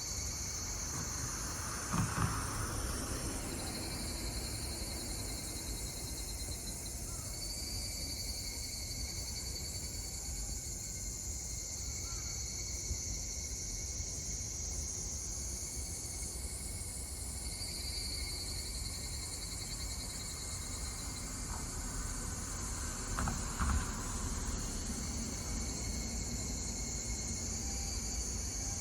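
Higurashi (evening cicadas) calling: rapid trilled calls rise and fade over a few seconds each, over a steady high insect hum and a low rumble. Two brief knocks come about 2 seconds in and again near 23 seconds.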